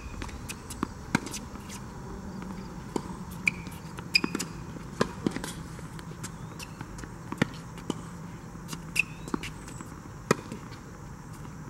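Tennis ball being hit with rackets and bouncing on a hard court during a rally: irregular sharp pops, some loud and close, others fainter, over a low steady hum.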